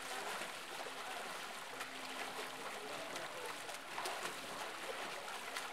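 Steady rush of water from a counter-current swim jet, broken by irregular splashes as a swimmer strokes against the flow.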